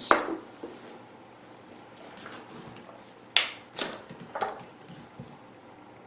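A handful of sharp clicks and knocks from handling a vacuum cleaner and working its controls: one at the start, then three close together a little past halfway, with quiet gaps between.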